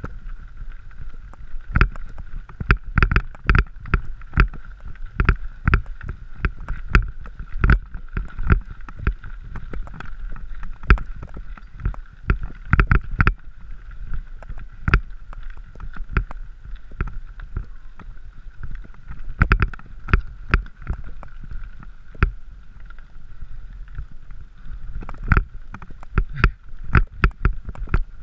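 Mountain bike riding over a rocky gravel track: irregular knocks and rattles as it jolts over stones, over a steady high hum.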